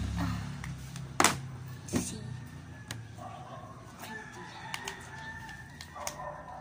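A chicken calling in the background: several drawn-out pitched calls in the second half. Two sharp knocks come earlier, about one and two seconds in.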